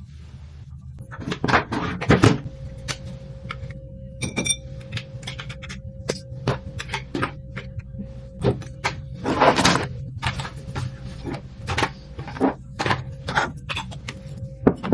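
Irregular clicks and knocks of things being handled, over a steady low hum, with a brief bright beep about four seconds in.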